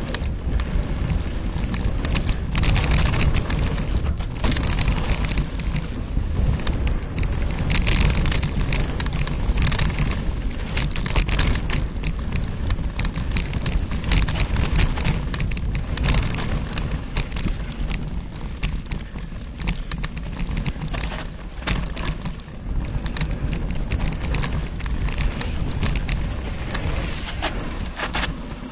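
Mountain bike riding along a dry dirt single-track trail: steady tyre noise on the loose surface and wind rumble on the handlebar-mounted microphone, with frequent clicks and rattles as the bike jolts over bumps.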